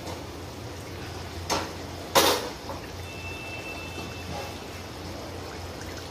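Chicken curry simmering in a kadai over a low gas flame, with a steady bubbling. A brass plate lid is lifted off and set down with two metal knocks, about a second and a half and two seconds in, the second the louder.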